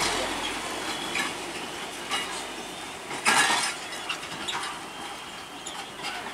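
Box truck and its drawbar box trailer rolling slowly over a railway level crossing: a series of metallic clanks and rattles as the wheels cross the rails and the body and coupling jolt. The loudest clank comes about three seconds in.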